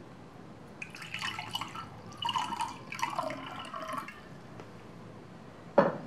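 Paintbrush swished around in a glass of water to rinse it: splashing and stirring in several bursts, with light clinks against the glass, over about three seconds. A single sharp knock near the end.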